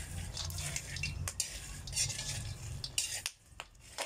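Metal spoon stirring and scraping dried cacao seeds around a metal frying pan as they dry-roast over a wood fire, in a run of short strokes with the beans rattling against the pan. A low rumble sits underneath and drops away about three seconds in.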